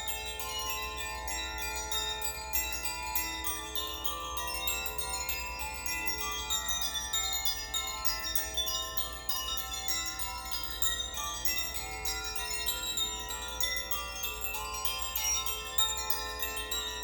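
Koshi chimes being played: a continuous, overlapping tinkle of many small ringing tones as the clapper inside the bamboo tube strikes its tuned metal rods, each note ringing on under the next.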